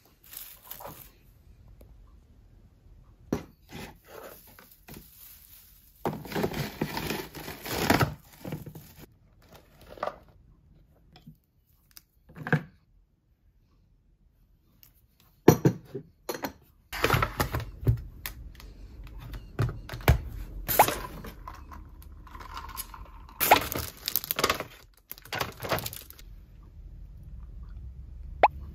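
Household handling sounds: rustling and scattered knocks and clatter as a small tinsel Christmas tree is taken down and decorations, among them a glass bottle, are picked up and set down. The sharpest knocks come about halfway through and again a little later.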